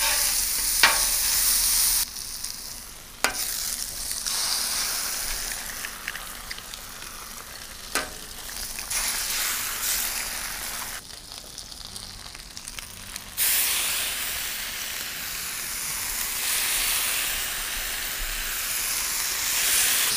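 Sliced sausage and eggs sizzling on the steel top of a Blackstone four-burner propane griddle, with a few sharp clicks. The sizzle is louder at the start, quieter from about two seconds in, and louder again after about thirteen seconds.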